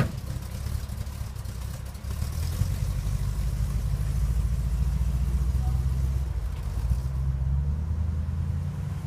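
A truck door shuts with a sharp bang at the start. Then the 1951 Chevy pickup's small-block V8 runs with a low, steady sound, louder from about two seconds in as the truck pulls away. The sound eases a little near the end as the truck drives off.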